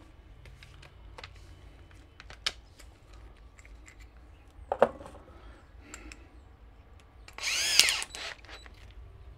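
Power drill run in a short burst of under a second near the end, its pitch bending as the trigger is squeezed and let go. Before it, scattered light clicks and a sharp knock about five seconds in.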